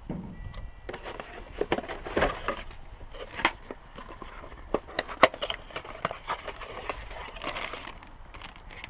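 Packaging being handled as parts are unpacked from a box: crackling, crinkling rustle with many scattered sharp clicks and knocks.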